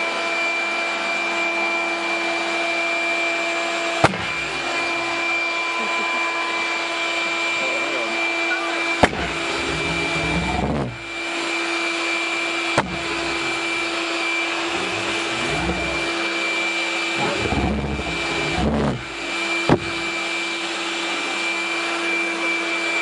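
Electric air blower running steadily with a high whine and a rush of air, blowing start air into a propane pulsejet. Four sharp pops stand out, about four, nine, thirteen and twenty seconds in: the propane lighting off in single pops while the pulsejet fails to catch and run.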